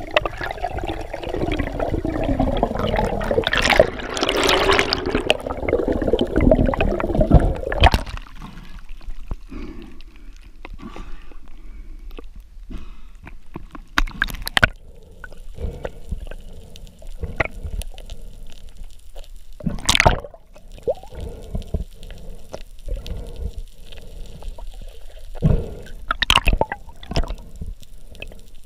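Water gurgling and sloshing close around the microphone. A pitched drone slides downward over the first eight seconds, then cuts out, leaving quieter water noise broken by a few sharp knocks.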